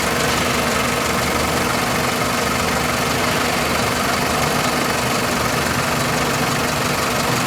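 2001 Toyota Corolla's 1.8-litre four-cylinder engine idling steadily.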